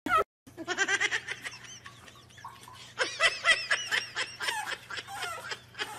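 A person laughing in two runs of quick, repeated pitched sounds, the second, starting about three seconds in, louder.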